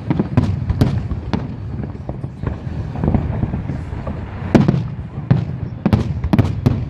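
Fireworks display: a rapid series of sharp bangs and crackling shell bursts over a continuous low rumble, with a cluster of louder bangs about four and a half seconds in and again near the end.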